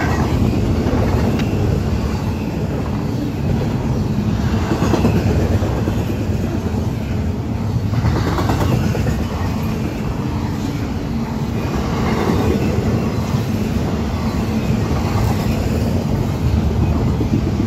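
Double-stack intermodal freight cars rolling past close by: a steady, loud noise of steel wheels on the rails, with a clatter that swells every few seconds as each car's wheel sets go by.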